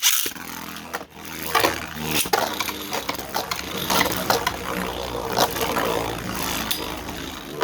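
Two Beyblade spinning tops, one of them 3D-printed, launched into a stadium together with a sudden loud start, then spinning with a steady whir and scraping against each other with several sharp clashes.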